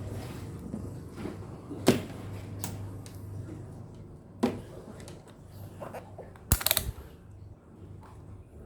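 Scattered clicks and knocks of small parts and tools being handled: a sharp one about two seconds in and a short rattling cluster near seven seconds, over a steady low hum.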